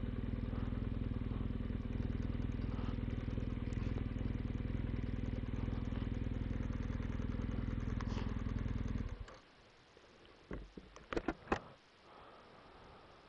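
BMW R1200GS Adventure's flat-twin engine running steadily at low revs as the bike pulls over, then switched off about nine seconds in, the sound stopping abruptly. A few light clicks and knocks follow.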